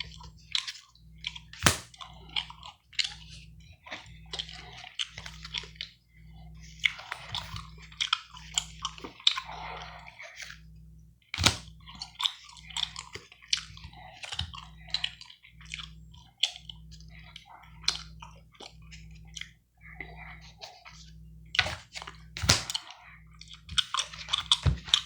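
Gum chewed close to the microphone: wet, irregular smacks and crackles, with a few sharper snaps.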